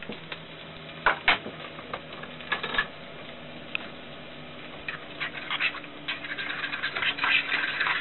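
A fork stirring and mashing reconstituted powdered egg in a shallow container, scraping and tapping against its sides to break up the lumps. The strokes are scattered at first and become quicker and louder over the last few seconds.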